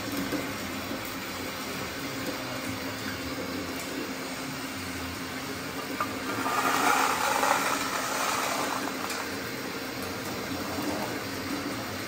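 RC construction machines running with a steady mechanical hum. About six seconds in, a louder rushing noise swells and fades over about two seconds.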